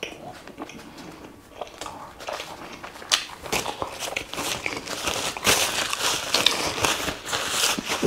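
Mouth-closed chewing, then from about three seconds in a paper napkin being unfolded, crinkled and rubbed between the hands, with dense crinkling and rustling.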